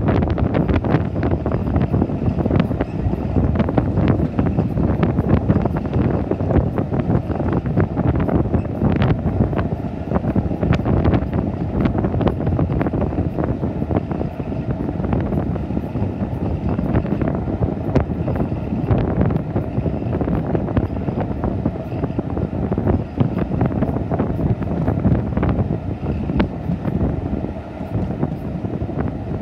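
Wind rushing over the microphone at the open window of a moving railway coach, over the steady running noise of the coach's wheels on the track, with scattered light clicks.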